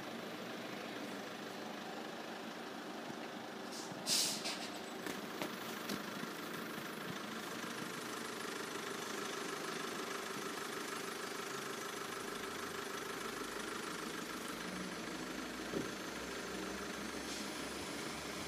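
Diesel multiple unit idling with a steady engine hum, a brief hiss about four seconds in. A deeper engine note joins about two-thirds of the way through as the train pulls away.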